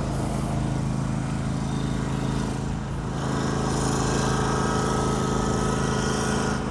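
An engine running steadily with a low, even hum; a hiss joins in about three seconds in.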